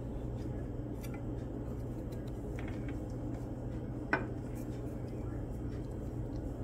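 Kitchen knife working a raw sweet potato: a few faint scrapes and clicks as the last of the peel comes off, with one sharper click about four seconds in. A steady low hum runs underneath.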